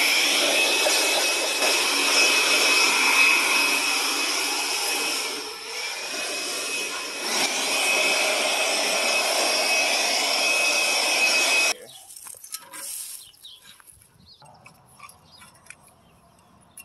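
Cordless leaf blower running steadily with a high whine, blasting air over a dusty tractor engine. It eases off briefly about five and a half seconds in, then cuts off suddenly at about twelve seconds, leaving only faint handling clicks.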